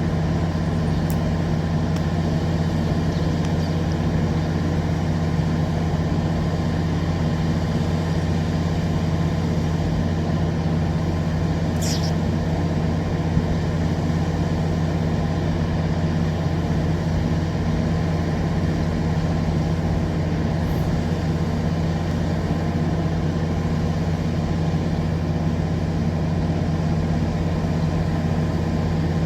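Diesel engine idling, a steady low drone that holds the same pitch and level throughout. A short high chirp sounds once about twelve seconds in.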